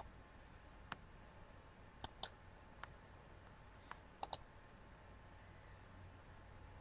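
Faint clicks of a laptop's pointer buttons as it is operated: a few scattered single clicks and two quick double clicks.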